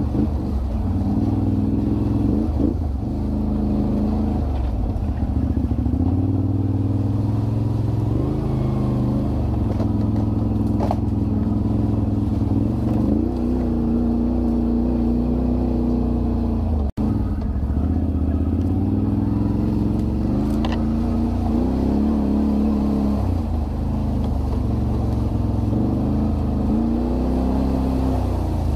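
Can-Am Renegade 1000 ATV's V-twin engine running while riding, the revs rising and falling again and again with the throttle. A momentary break in the sound a little past halfway.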